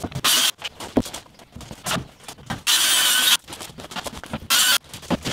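Handheld circular saw cutting through a sheet of plywood in three short, loud bursts. Between the bursts come knocks and clatter as the plywood is handled.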